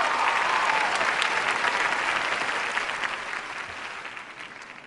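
Large theatre audience applauding, the clapping dying away over the last couple of seconds.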